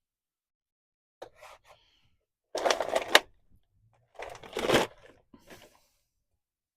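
Hand work on brake parts with tools: a few light clicks, then two louder bursts of clattering and rubbing about a second and a half apart.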